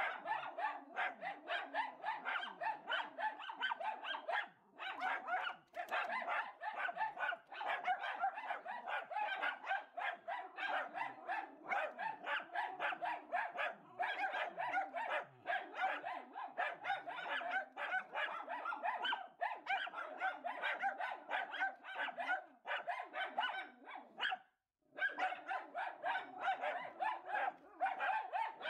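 Miniature schnauzers barking rapidly and almost without letup, several barks a second, at a cat outside the window. There are a couple of short breaks and one clear pause a few seconds before the end.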